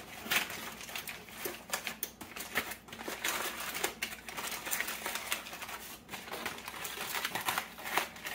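Aluminum foil crinkling and rustling in quick, irregular crackles as it is folded and crimped by hand into a tent over a disposable aluminum baking pan.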